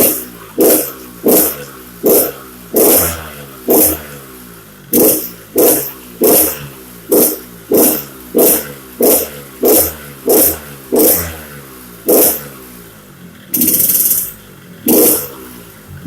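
Yamaha RX-King two-stroke single-cylinder motorcycle engine blipped over and over, about three sharp revs every two seconds, dropping back between them, with one longer rev near the end. The growling, rattling "ngorok" (snore) exhaust note.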